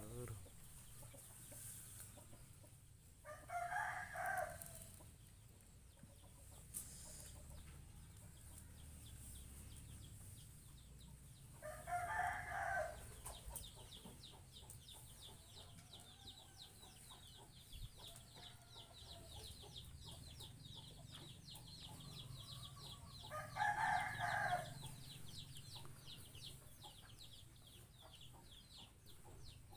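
A rooster crowing three times, about ten seconds apart, each crow a little over a second long, with a fast high chirping underneath from about halfway through.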